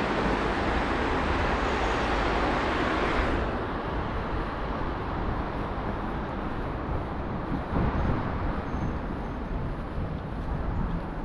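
A passing vehicle's rumble, loud at first and falling away sharply about three seconds in, leaving lower steady city traffic noise.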